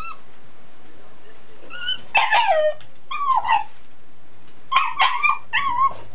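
Young dog in a wire playpen yipping and whining: short, high calls that slide down in pitch, in three quick clusters starting about two seconds in. The owner takes this as a sign that he is very stressed.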